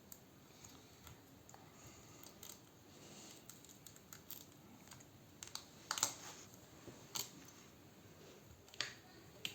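Faint scattered clicks and light scrapes of small tools prying at an iPad's glued glass touch screen and frame to work the screen loose, the loudest click about six seconds in.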